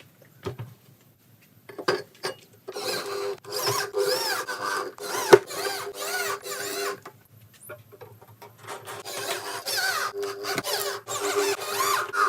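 Speaker cabinet on a sound test, playing squealing, wavering high sounds in stop-start bursts over a steady low tone, with a few sharp clicks, the loudest a little past the middle.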